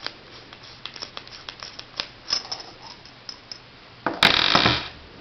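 Small metal parts of a paintball marker's bolt assembly being handled: light clicks and taps, then a louder scraping rattle about four seconds in that lasts just under a second.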